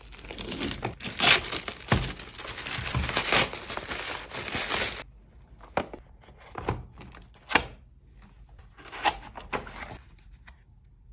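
Keycap set's packaging being torn open and crinkled: about five seconds of continuous crackling and tearing, then a few separate knocks and short rustles as the box is handled.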